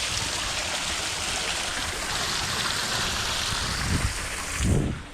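Running water rushing steadily, like a stream. It cuts off abruptly near the end, with a couple of low thuds.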